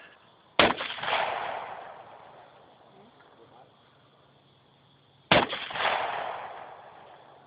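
Two single shots from an AR-15 rifle, about four and a half seconds apart, each followed by a long echo that dies away over a couple of seconds.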